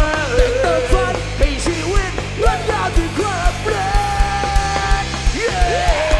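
Live band playing an instrumental break of a Thai pop-rock song. A lead line of sliding, bending notes plays over bass and a steady drum beat.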